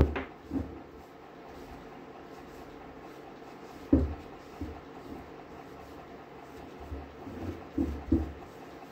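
A few sharp knocks and clacks of hard objects being handled: one at the start, one about four seconds in, and several close together near the end.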